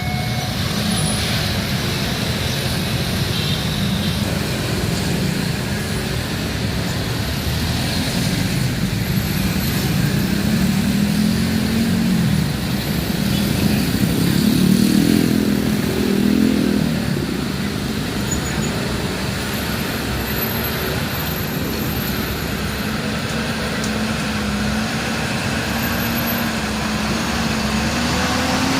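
Steady road traffic at a level crossing: car, truck and motorcycle engines passing. One engine swells to its loudest about halfway through, and another rises in pitch near the end.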